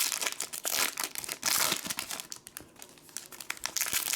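Plastic trading-card pack wrapper crinkling and tearing as it is handled and ripped open, with a dense run of irregular crackles.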